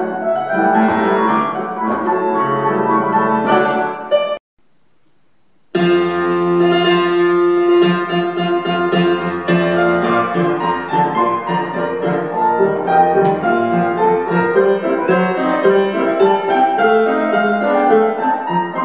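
Classical piano music played as dance accompaniment. It breaks off about four seconds in, and after a second or so of silence a new piano passage begins.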